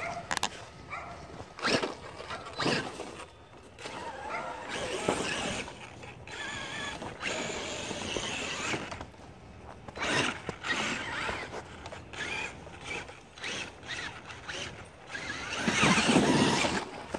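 Electric RC monster truck (Traxxas E-Maxx) driving through snow: its motor and gears whine in uneven bursts as the throttle is worked, with a loud burst of noise near the end.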